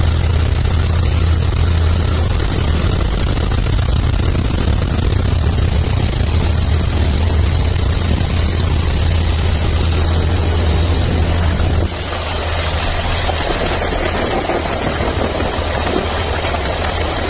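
Steady low engine drone of an aircraft with a rushing noise over it; about twelve seconds in the low hum drops a little and the higher rushing sound comes forward.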